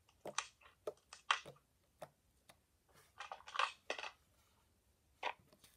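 Sticky slime being pressed and kneaded by fingers on a wooden table, giving off irregular sticky clicks and pops, with a denser run of crackles a little past three seconds in.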